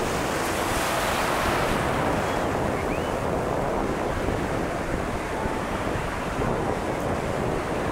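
Sea surf breaking and washing in, mixed with wind buffeting the microphone: one steady, even rush of noise with no let-up.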